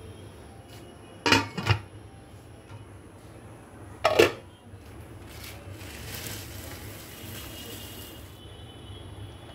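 A cooking pot knocked and clanked by kitchenware, twice about a second in and once again around four seconds in. Then raw sticky rice is poured into the pot with a steady hissing rattle for about two and a half seconds.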